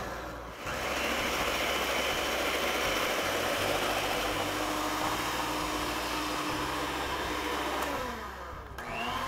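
Handheld electric mixer running steadily, its beaters churning wet quick-bread batter as flour is worked in. The motor drops off and spins back up just under a second in, winds down about eight seconds in, and starts again briefly near the end.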